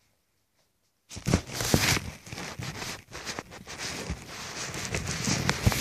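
About a second of near silence, then loud rustling, rubbing and knocks right at the microphone, the sound of the recording device being handled or brushed against at close range.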